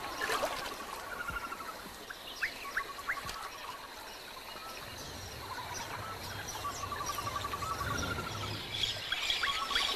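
Wild animal calls: short rising chirps and repeated rapid pulsed trills, over a thin steady high tone.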